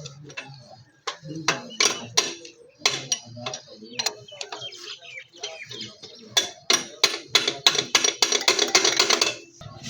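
Sharp metallic clinks and taps of hand tools on a Honda CD70 motorcycle engine, scattered at first, then coming quickly, about three a second, in the second half. Right at the end a motorcycle engine starts running.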